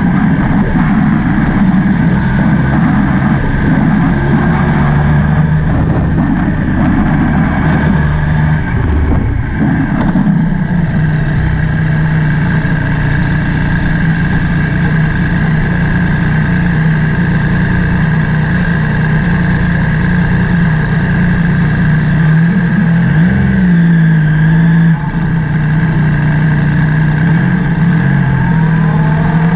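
Motorbike engine running steadily at low speed, heard close up, its pitch shifting a little as the throttle changes. A rougher low rumble sits under it for roughly the first ten seconds.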